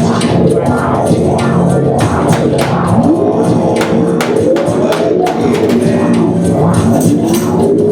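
Live band music: a steady low drone under drum strokes, with sliding notes that bend upward about three seconds in and again near the end.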